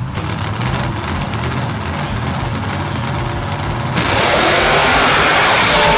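Drag racing car engine running low and uneven at first. About four seconds in it abruptly becomes much louder as a car goes to full throttle.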